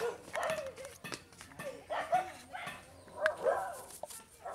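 A dog giving short yips and whimpers, with a few sharp clicks in between.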